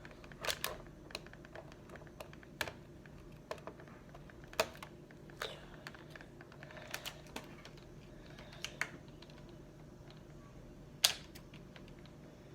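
Irregular sharp plastic clicks and taps, roughly one a second, as an action figure is worked out of its plastic packaging; one louder snap near the end.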